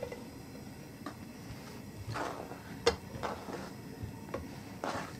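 Diced bacon scraped off a plastic cutting board into a frying pan: several light scrapes and clicks as the board and hand knock against the pan, with one sharper click about three seconds in.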